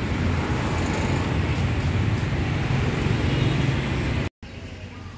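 Steady street traffic noise with a low rumble of passing vehicles, which cuts off suddenly about four seconds in to a much quieter background.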